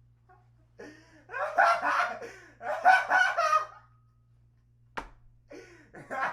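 A person's voice giving two loud, drawn-out cries, the second trailing into a thin held tone, with a sharp click about five seconds in.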